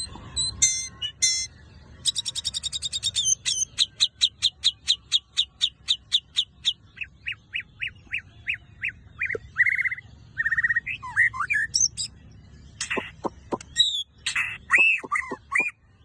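White-rumped shama singing an unusual, varied song: a fast rattle about two seconds in, then a long run of sharp repeated notes that drop in pitch and slow down, then warbled, slurred whistles.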